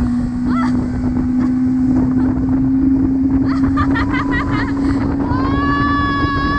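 Motorboat engine running steadily under way, its pitch creeping slowly up, with wind buffeting the microphone and water rushing. About five seconds in, a higher held tone comes in over it.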